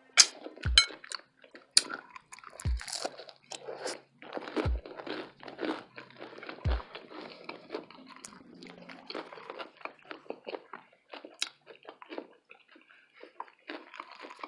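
Close-miked chewing of a burrito: sharp crunching bites in the first two seconds, then steady wet chewing with many small mouth clicks.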